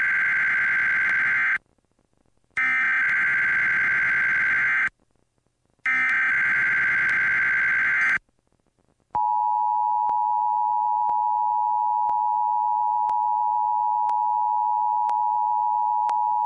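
Emergency Alert System SAME header: three bursts of data tones, each a little over two seconds long with short gaps between. About nine seconds in, the steady two-tone EAS attention signal starts and keeps sounding, announcing a tornado warning.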